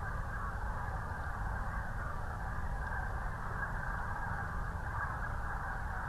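Continuous din of many overlapping bird calls from large migrating flocks over the river, with a steady low rumble underneath.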